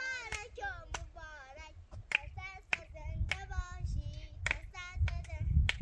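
A young child's high voice chattering in a sing-song way, broken by sharp clicks and knocks, with a low rumble joining about halfway through.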